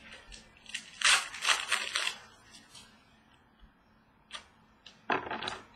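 Trading cards being handled and flipped through: a few short bursts of cards sliding and rustling against each other, with a sharp click about four seconds in.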